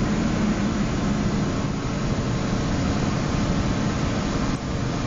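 John Deere 8440's six-cylinder turbo diesel engine running steadily in the first minute after a cold start, heard from inside the cab.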